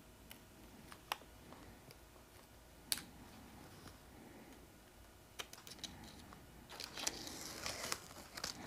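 Faint, scattered light clicks and taps from small parts being handled, a few seconds apart at first, then a denser crackling rustle near the end.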